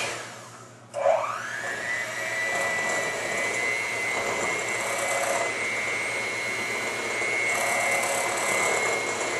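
Electric hand mixer beating batter in a bowl. At the start its motor winds down as it is switched off. About a second in it is switched back on, its whine rising quickly in pitch, and it then runs steadily.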